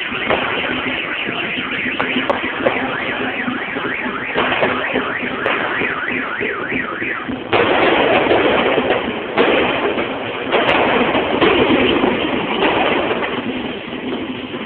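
Dense, continuous crackle and bangs of Chinese New Year firecrackers and fireworks, jumping suddenly louder about halfway through. A repeating up-and-down wailing tone cuts through the crackle for a few seconds before the jump.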